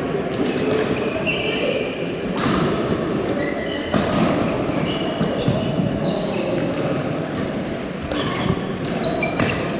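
Badminton play in a large hall: sharp racket hits on shuttlecocks every second or two, short high squeaks of court shoes on the floor, and a low murmur of voices.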